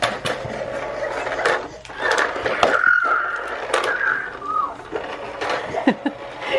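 A toddler gives a high, drawn-out squeal about two seconds in, lasting about two seconds, among scattered knocks and clatter of toys on a hard surface.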